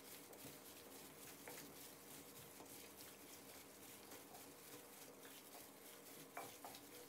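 Faint wet squelching and crinkling of a plastic-gloved hand kneading raw chicken wings in marinade in a stainless steel bowl, with a few small clicks.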